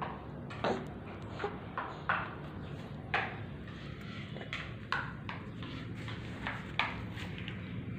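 A series of short, sharp clicks, about nine, irregularly spaced, over a steady low hum.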